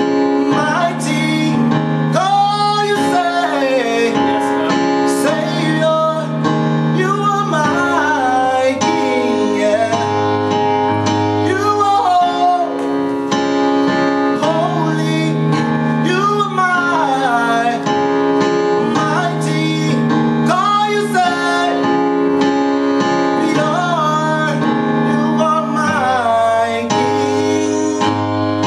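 A man singing a gospel song solo over a piano or keyboard accompaniment, bending and sliding the pitch of his held notes.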